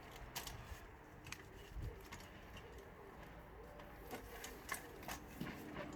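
Faint, scattered clicks and knocks at irregular intervals, from the frame of an ARB camp stretcher being handled as it is set up.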